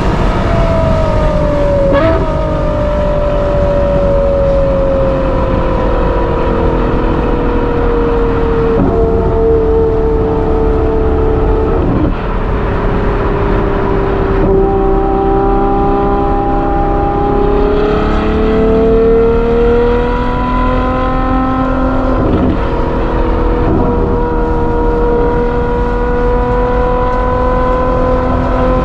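Ferrari 812 GTS's naturally aspirated 6.5-litre V12 through a Novitec exhaust, heard from inside the car at motorway speed over road and wind noise. The engine note sinks slowly with a few short breaks, climbs again about two-thirds of the way through, then holds steady.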